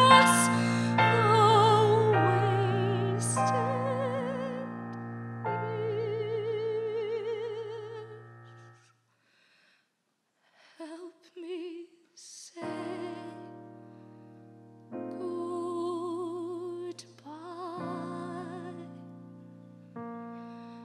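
A young female voice sings a musical-theatre ballad in a classical style with strong vibrato, over piano accompaniment. A loud held note fades away about eight seconds in. After a short silence she resumes softly over new piano chords.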